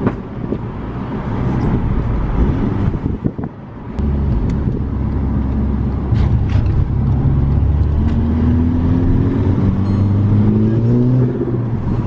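Volkswagen Mk6 GTI's turbocharged 2.0-litre four-cylinder, heard from inside the cabin under hard driving. A few sharp cracks come on lift-off about three seconds in, the overrun pops of its pops-and-bangs tune. The engine then pulls again, its note rising from about eight seconds in and dropping at a gear change near the end.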